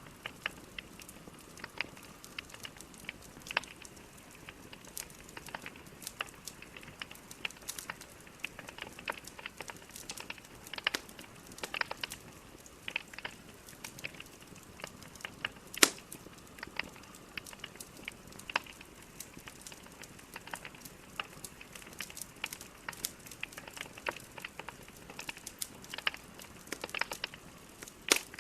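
Logs burning in a fireplace, crackling: irregular sharp pops and snaps over a soft steady hiss, with one louder crack about halfway through.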